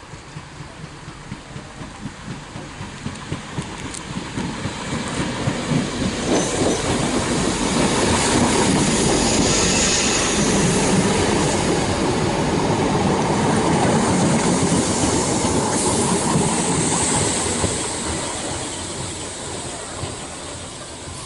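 British Rail Class 313 electric multiple unit 313201 passing close by on the near line. Its wheels clack over rail joints in a steady beat that grows louder as it approaches. It is loudest as the carriages go past, then fades as it draws away.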